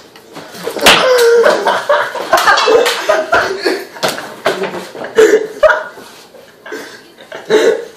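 Teenage boys laughing loudly, with several sharp smacks among the laughs.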